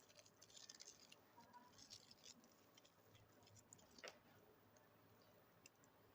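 Faint scratching and small clicks of a CCTV camera cable being cut and stripped by hand, busiest in the first couple of seconds, with one sharper click about four seconds in.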